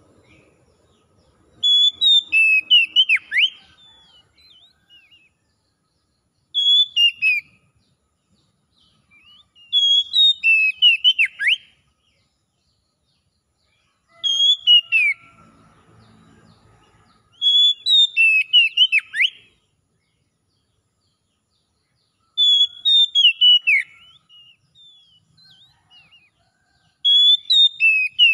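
Oriental magpie-robin singing: short, loud phrases of clear whistled notes, many sliding downward, repeated about every four seconds with pauses between.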